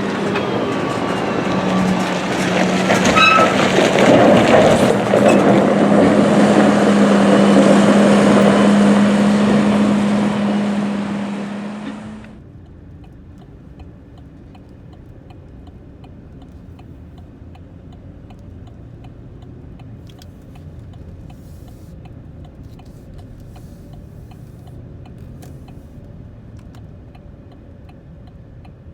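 Big farm machinery working in a corn harvest field: a loud, dense machine noise with a steady hum, growing louder over the first dozen seconds. It cuts off suddenly about twelve seconds in, leaving a much quieter low hum with faint, regular ticking.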